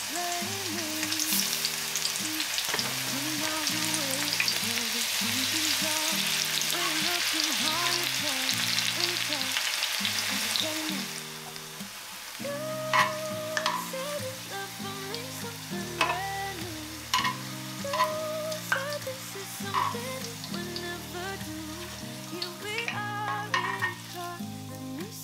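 Enoki mushroom tempura deep-frying in oil in a Staub enamelled cast-iron pan: a steady, dense sizzle that dies down about eleven seconds in. Background music plays underneath throughout.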